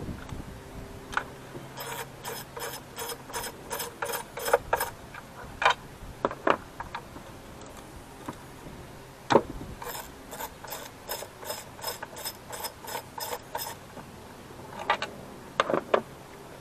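Socket ratchet wrench on an extension clicking in two runs of quick strokes, about three to four clicks a second, as it loosens the bolts holding the engine cover. A few sharp single knocks of tools on metal fall between the runs.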